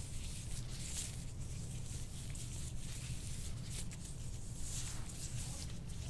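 Hands rubbing and kneading lotioned skin on a person's back, soft swishing strokes that swell and fade irregularly about once a second, over a steady low hum.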